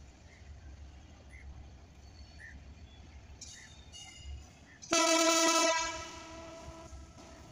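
Diesel locomotive horn sounding one long blast about five seconds in, loud for about a second and then trailing off, over the low rumble of the slowly approaching train.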